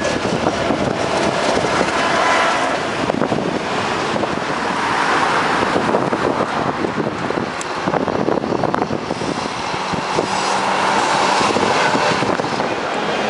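Road traffic running by, with a tram coming up and passing close to the microphone.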